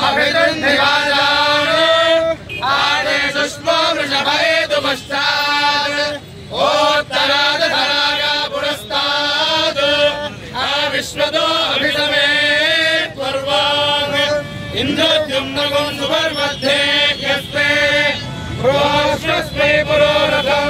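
A group of men chanting Vedic Sanskrit mantras together, a steady recitation with long held notes and brief breaks for breath every few seconds.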